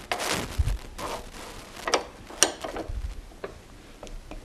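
Steel spanner wrench tightening an ER32 collet nut on a collet chuck: rubbing and scraping at first, then a few sharp metal clicks as the wrench bites and turns the nut.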